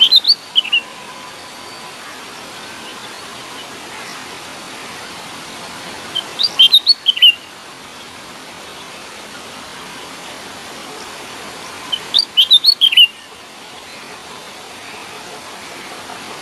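Bird chirping in three short bursts, each a quick run of high chirps lasting about a second, coming about six seconds apart over a steady background hiss.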